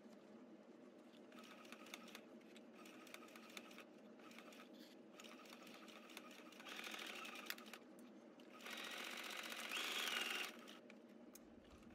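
Brother XR3140 computerized sewing machine running faintly as it stitches a seam through two layers of fabric, with quick ticking from the needle strokes. It gets louder in stretches about seven seconds in and again from about nine to ten and a half seconds.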